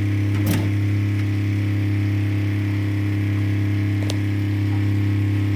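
SolarMaax 10 marine watermaker running: a steady low hum from its pump. Two brief clicks come through, about half a second in and about four seconds in.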